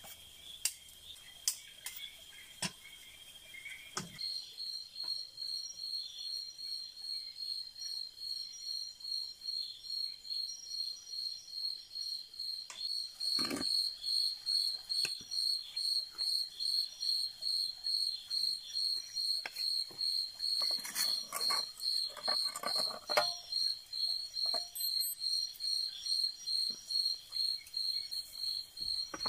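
Cricket chirping in a steady rhythm, a few high chirps a second, starting about four seconds in over a fainter even trill. A few soft rustles and knocks come in around the middle.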